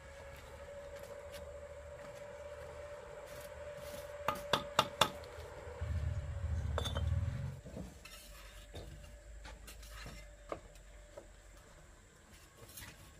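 Handling clatter: four quick, sharp knocks or clinks about four seconds in, a low rumble lasting a second or so just after six seconds, then a few scattered lighter clicks, over a faint steady hum in the first half.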